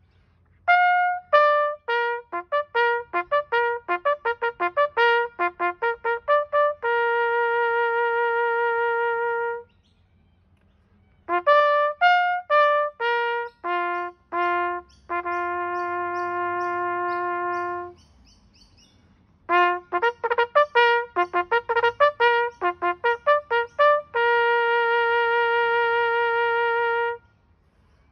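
Trumpet playing a military bugle call. There are three phrases, each a quick run of short arpeggio notes ending on a long held note, with a brief pause between phrases.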